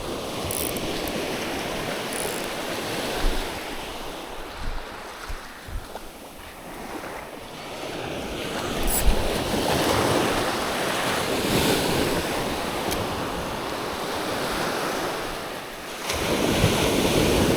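Sea waves washing in, swelling about ten seconds in and again near the end, with wind buffeting the microphone.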